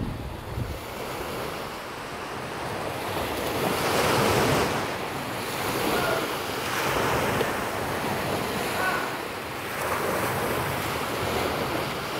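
Small waves breaking and washing up a pebble beach, surging every two seconds or so.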